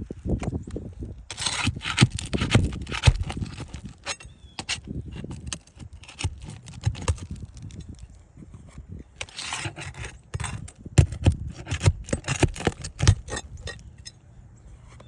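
Irregular scraping and clicking as a tool works under three-tab asphalt shingles to pull roofing nails, with the lifted shingles rustling.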